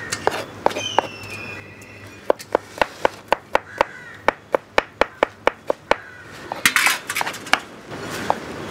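Kitchen knife finely chopping garlic, a quick, even run of strokes at about four or five a second, with a short clatter near the end.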